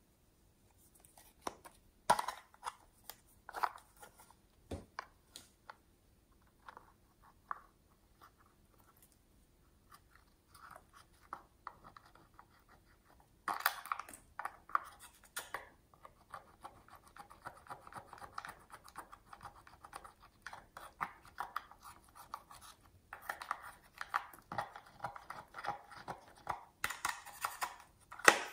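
A few sharp plastic clicks as an apple-shaped plastic makeup compact is handled and opened. From about halfway in, a pink plastic spatula scrapes the pressed makeup powder in its pans in quick, gritty scratching strokes.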